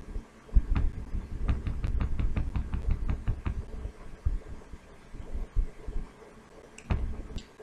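Computer mouse scroll wheel ticking in a quick run, about six ticks a second for two seconds, over low muffled thumps on the microphone; a single mouse click near the end.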